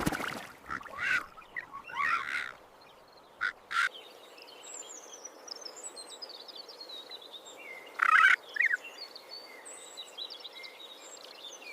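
Ravens giving short harsh calls, several in the first four seconds and one more about eight seconds in, with small birds twittering faintly in the background.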